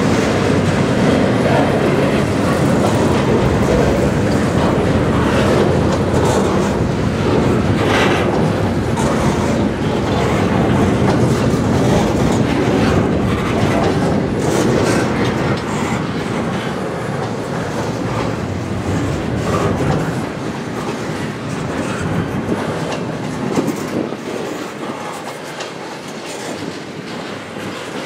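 Double-stack container train's well cars rolling past close by, a steady rumble of steel wheels on the rails that grows quieter over the last several seconds.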